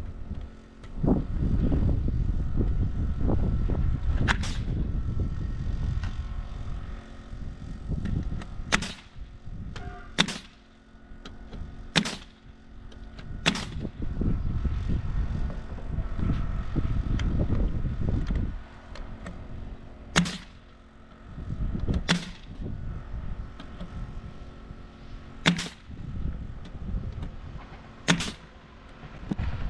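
Pneumatic framing nailer firing nails through OSB subfloor sheathing into the joists: about nine sharp single shots a few seconds apart. A low rumble of wind on the microphone runs under the first several seconds.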